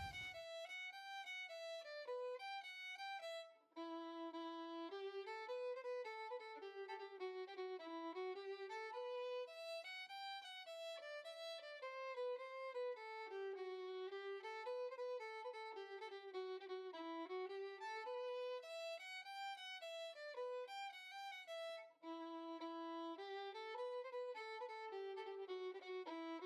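Background music: a violin playing a melody, with two brief breaks, one a few seconds in and one about 22 seconds in.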